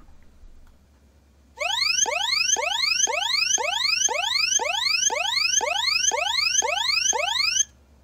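Electronic alarm sound played by a BY8001-16P MP3 player module: a rapid series of rising whooping tones, about two a second, starting about a second and a half in and cutting off suddenly near the end.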